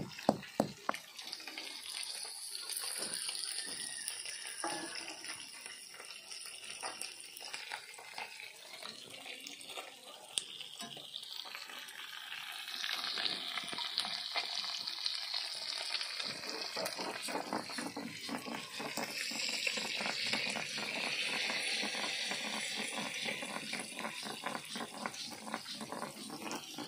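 Small fish sizzling as they fry in hot mustard oil in a wok: a steady hiss with dense little crackles. A few sharp knocks near the start from a stone roller grinding spices on a stone slab.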